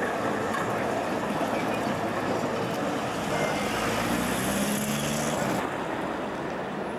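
A tram rolling past with road traffic, and a car driving by close up about halfway through, its engine a low hum. At a cut shortly before the end, the sound drops to a quieter, steadier rumble.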